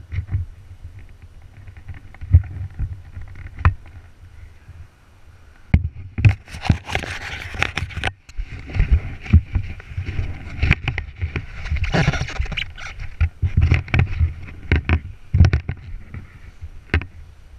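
Irregular knocks, thumps and rustling on a helmet-mounted action camera's microphone as the wearer moves about, with a stretch of dense rushing noise about six to eight seconds in. No engine is running.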